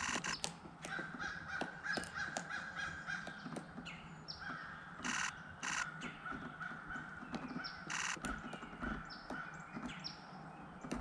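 Pileated woodpecker chiselling at a tree's bark: scattered sharp taps and knocks. Loud, harsh cawing calls come about five and eight seconds in, with a few short falling whistles.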